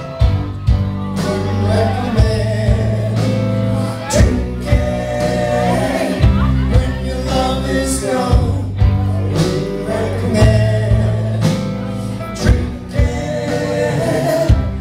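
Live rock band playing: electric guitars, drum kit and keyboard, with men singing over a steady beat.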